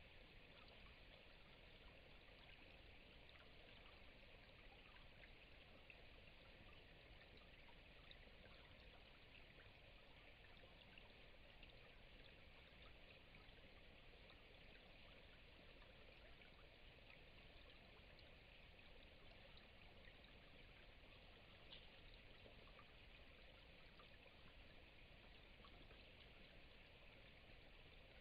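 Near silence: a faint, steady hiss with a few scattered faint ticks.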